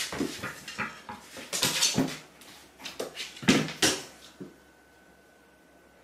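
Cats scrambling and pouncing on a hard floor while chasing a small toy ball: paws scuffing, thudding and sliding in several quick bursts over the first four seconds, with a last short tap about four and a half seconds in.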